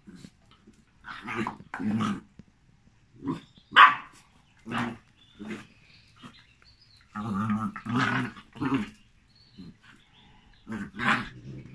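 Dogs play-fighting, a Jack Russell terrier and a Malinois puppy: short barks and growls in bunches, the loudest a sharp yap about four seconds in.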